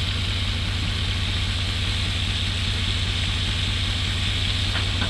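Breaded catfish fillets deep-frying in hot oil, a steady even sizzle over a steady low rumble.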